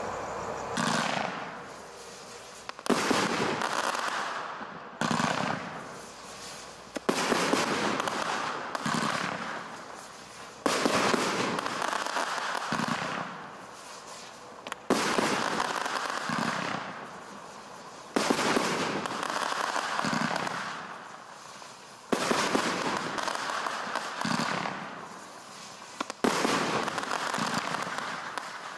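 Skycrafter Twisted Aftershock 72-shot fan barrage cake firing volleys of shots every second or two. Each volley is a sharp report followed by a fading hiss.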